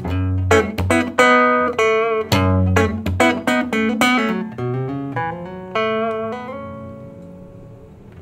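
Fender Jazzmaster electric guitar played clean through a Fender Riff portable speaker, a quick run of picked and strummed chords. The last chord rings out and fades away near the end.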